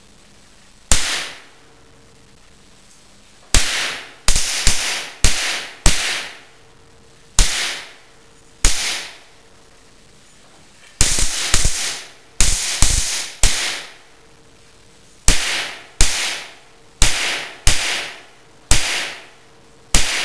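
A series of about twenty sharp, loud bangs at irregular intervals, some close together in quick runs. Each one dies away over about half a second.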